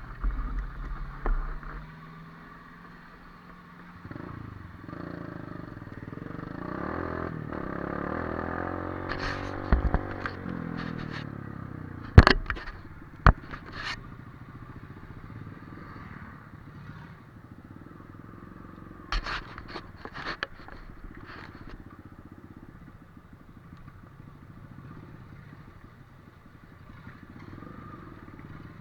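Daihatsu Feroza pickup's engine driving off-road, revving up over several seconds and then running steadily. Sharp loud knocks about twelve and thirteen seconds in, and clusters of clatters before and later, from the vehicle jolting over rough ground.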